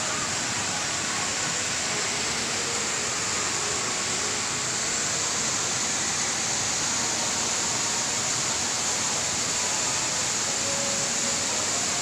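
Artificial waterfall in an indoor garden pond, its falling water making a steady, even rushing hiss.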